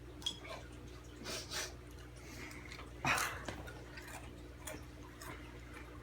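Takis rolled tortilla chips being crunched and chewed in scattered crunches, the loudest about three seconds in.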